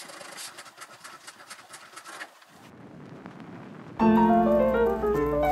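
Faint rustling and clicking for the first couple of seconds, then about four seconds in, piano background music starts abruptly and becomes the loudest sound.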